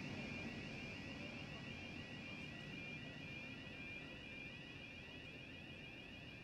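A fast-repeating electronic warning bell rings over the fading rumble of a departing diesel-hauled grain train. The bell stops near the end.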